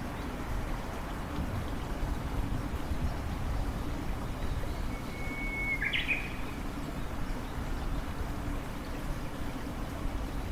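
A single bird call about five seconds in: a held whistle of about a second that ends in a quick sharp chirp. It sits over a steady low outdoor noise.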